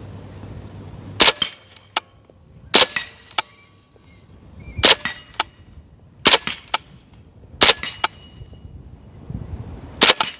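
Six suppressed subsonic 9mm shots fired one at a time, about one to two seconds apart. Each shot is followed a split second later by a fainter smack of the bullet striking downrange.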